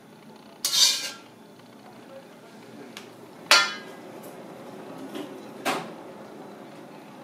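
Kitchen utensil clatter: three sharp clanks of a metal ladle and dishware, the second with a brief metallic ring.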